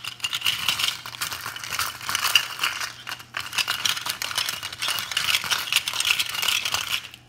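Plastic spatula stirring brownie pieces around a plastic mixing bowl: a continuous quick clatter of small clicks and scrapes, with a brief pause about three seconds in, stopping just before the end.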